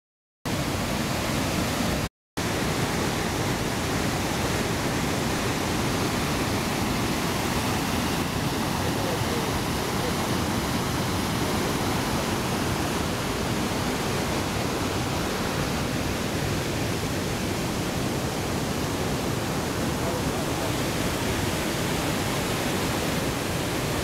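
Waterfall: a steady, loud rush of white water pouring over rocks, cutting out briefly about two seconds in.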